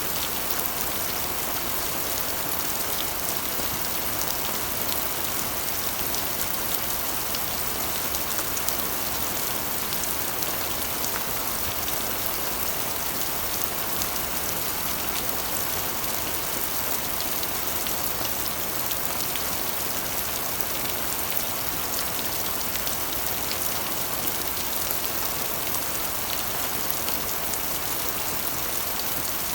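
Steady rain drumming on a corrugated iron roof: a dense, even hiss with countless sharp ticks of individual drops striking the metal.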